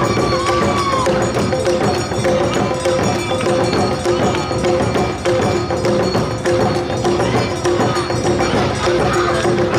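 Awa odori festival music played live: drums and bells struck in a quick, steady beat under long held flute notes.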